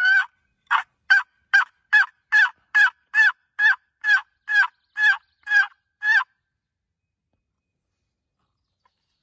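Quaker Boy wooden box call worked by hand, giving a run of about fourteen short turkey yelps at about two a second, imitating a hen turkey to call in a gobbler. The run stops about six seconds in.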